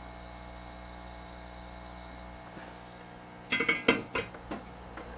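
Steady low electrical hum, then a quick cluster of light, ringing metallic clinks about three and a half seconds in, as the soldering iron is set back in its metal stand.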